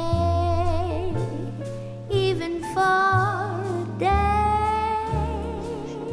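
A song with a sung voice holding long, wavering notes over a bass line that changes note about once a second.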